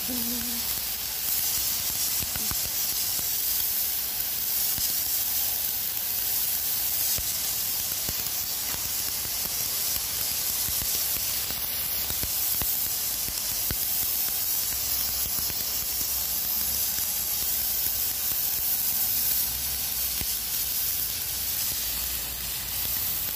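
Pressure-washer jet hissing steadily as it blasts across wet concrete, stripping off the slippery algae film.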